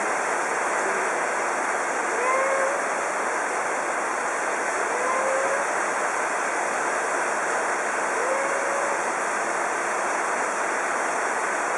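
Steady loud rushing noise, with three faint short rising tones about three seconds apart.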